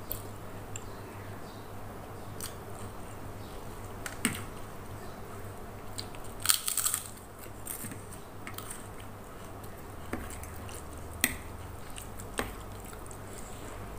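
Close-up eating sounds: a mouthful of instant soto noodles with raw bean sprouts being bitten and chewed. Scattered short clicks run through it, the loudest cluster a little past the middle, over a steady low hum.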